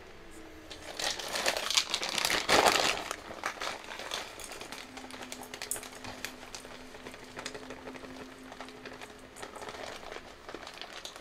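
Plastic groundbait bags crinkling and rustling as they are handled, with dry bait powder scooped out by bowl into a plastic bucket; the rustling is loudest in the first few seconds, then softer.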